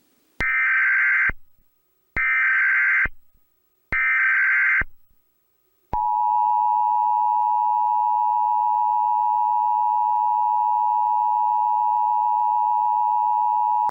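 Emergency Alert System tones. First the SAME header: three one-second bursts of digital data tones, a second apart. Then, about six seconds in, the steady EAS two-tone attention signal (853 and 960 Hz) starts, marking the opening of an emergency alert broadcast.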